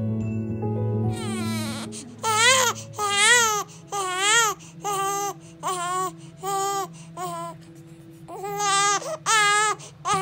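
Young infant crying in short, rhythmic wails, about two a second, each rising and falling in pitch, with a brief pause after the middle before the wails resume. Soft background music plays under the first two seconds, then fades out as the crying starts.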